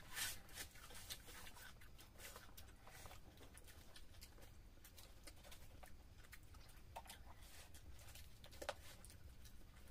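Faint wet clicks and squelches of hands mashing rice and fish-head curry on plates, and of chewing, over a low steady hum, with a sharper click at the start and another near the end.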